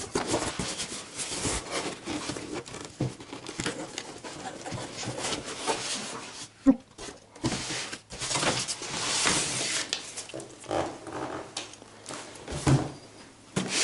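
Rustling, crinkling and clicking of packaging being handled and opened by hand, in irregular bursts.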